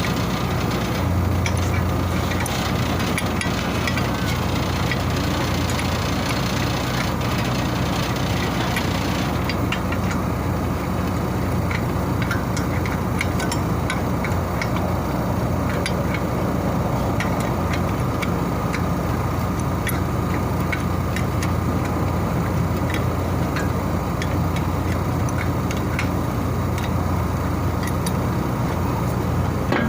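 Steady hum of running machinery, with scattered light clicks.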